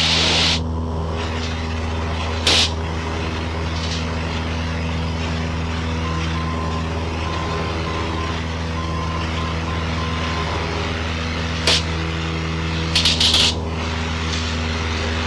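Cessna 172N's four-cylinder Lycoming engine and propeller running steadily at full power in the climb just after takeoff, heard from inside the cabin. A few brief crackles cut in about two seconds in and again near the end.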